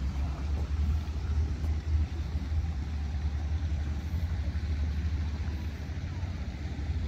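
Wind buffeting the microphone: a steady low rumble with a faint haze of outdoor noise above it.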